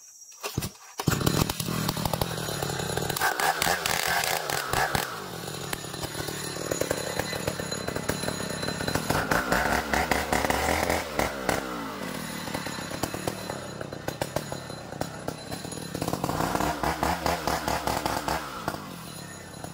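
Home-built chainsaw mill running, the engine revving up and easing back three times, starting about a second in.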